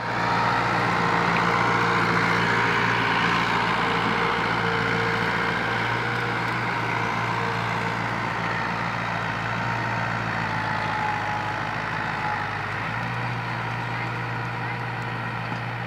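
New Holland Fiat 640 tractor's four-cylinder diesel engine running steadily under load as it pulls a disc harrow through wet soil. The sound slowly fades as the tractor moves away.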